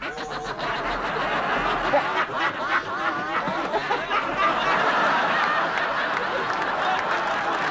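A man laughing heartily in long cackles that rise and fall, with audience laughter filling in behind him from about halfway.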